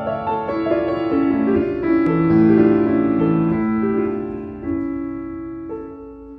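Piano music playing a slow run of held notes, fading out over the last couple of seconds.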